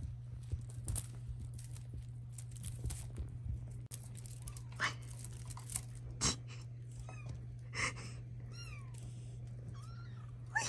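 British Shorthair kittens mewing: a run of short, high mews in the second half, after soft scuffs and taps of paws on a blanket, over a steady low hum.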